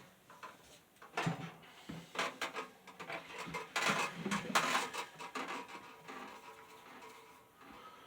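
Hands working on a box fan and its parts: a busy run of clicks, knocks and light rattles, thickest in the middle, then quieter handling.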